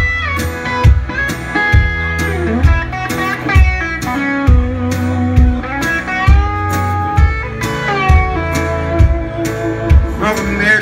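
Live rock band playing an instrumental break: an electric guitar lead with bending, sliding notes over acoustic guitar, bass and a steady drum beat.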